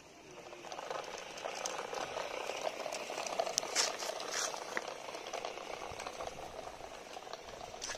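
Small electric gear motor of a homemade RC tractor running, with a steady whirring rattle as it drives over concrete; the noise swells about a second in, with a few sharp clicks near the middle.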